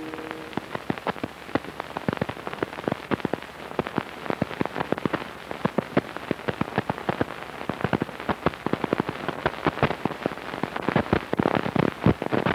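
Dense, irregular crackles and pops from dust and scratches on the blank optical soundtrack of old film leader, after the last note of the music dies away at the start. The pops grow thicker and louder near the end.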